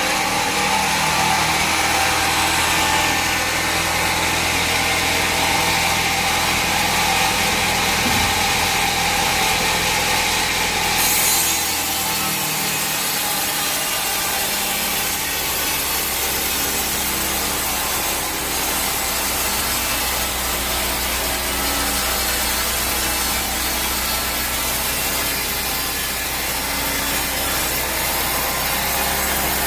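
Sawmill saw running and cutting through timber: a steady loud mechanical noise with a hiss of sawing over it, changing in tone about eleven seconds in.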